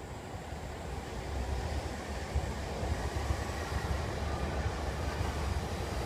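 Low, steady outdoor rumble that slowly grows louder.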